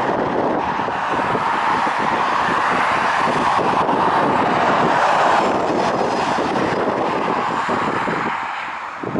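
Jet noise from an Ilyushin IL-76's four turbofan engines at takeoff power, swelling to its loudest about five seconds in and fading near the end as the aircraft passes. Wind buffets the microphone throughout.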